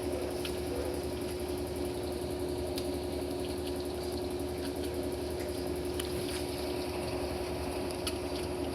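Whirlpool 22 kg washing machine on its spin cycle, running steadily with a constant whine over a low hum and a few faint ticks.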